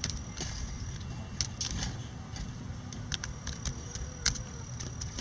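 Bantam chickens pecking at a hanging cabbage: a scatter of sharp, irregular beak taps, about a dozen, over a low steady rumble.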